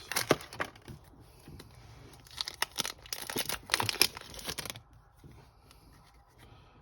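Trading card booster pack wrapper being torn open and crinkled by hand, in crackly spells over the first five seconds before it goes quiet.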